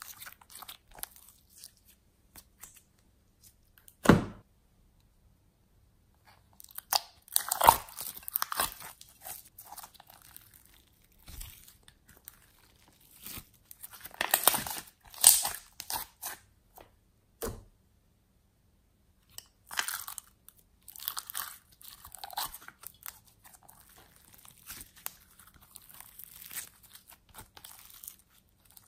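Hands squeezing, stretching and pressing glittery slime: irregular bursts of sticky clicking and squishing, separated by short silent pauses, with one sharp thump about four seconds in.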